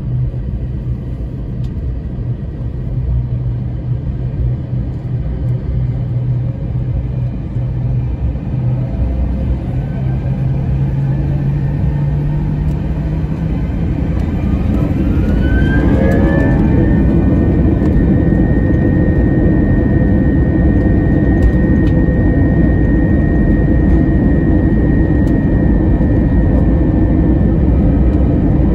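Jet airliner engines heard from inside the cabin, spooling up for the takeoff roll. A low hum gives way about halfway through to a rising whine, which settles into a steady high whine over a louder roar.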